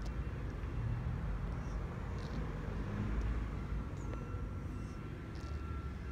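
Steady low rumble of outdoor background noise, typical of distant traffic, with a few faint high chirps.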